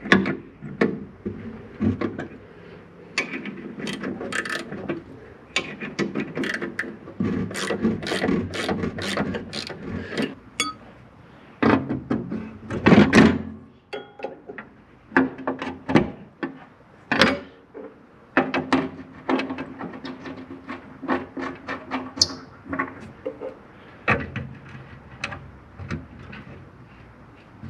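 A 19 mm steel ring spanner turning a bolt through a steel checker-plate floor: many irregular metal clicks, clinks and knocks with scraping in between.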